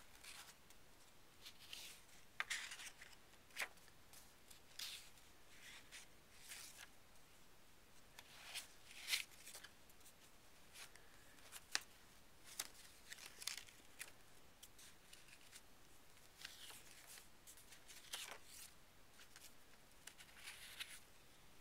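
Faint paper rustling: a dozen or so short, scattered rustles and flicks of sheets and pages being handled and leafed through.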